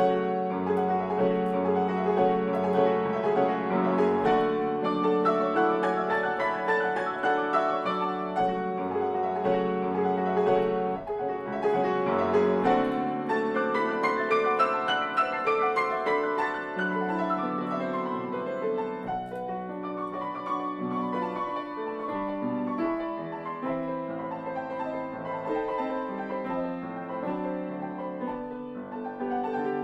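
Solo grand piano playing a dense classical passage, with sustained chords in the bass and middle and a continuous stream of notes above them.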